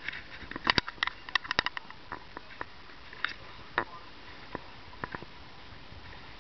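A rapid cluster of sharp clicks and taps in the first two seconds, then a few scattered ones, over a steady hiss of wind and water.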